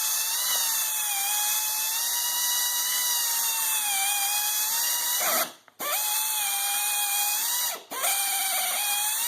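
Electric mixer running in a bucket, churning wet paper pulp and sawdust into briquette mix; its whine wavers in pitch as the load changes. It cuts out briefly twice, about five and a half and eight seconds in, and speeds back up each time.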